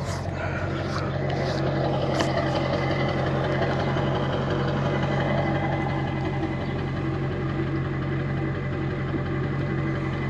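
Ford F-550 flatbed tow truck's engine idling steadily, with a few light clicks in the first couple of seconds.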